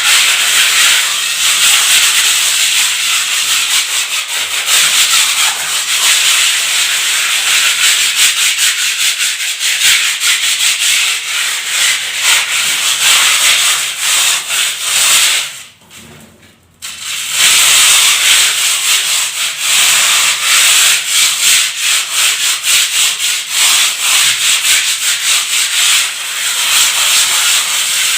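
Sandpaper rubbed by hand against a wall in quick back-and-forth strokes, a loud scratchy hiss. It pauses briefly about halfway through, then carries on.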